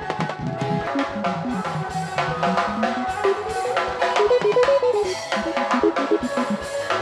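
Live band music with no singing: a drum kit keeping a steady dance beat under electric guitar, with a run of notes climbing and then falling in the middle.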